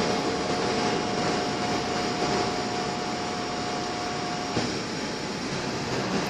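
Boeing 787 cabin noise during the climb after takeoff: the steady rush and rumble of the jet engines and airflow, heard through the fuselage. A thin steady whine runs through it and cuts off about two-thirds of the way in.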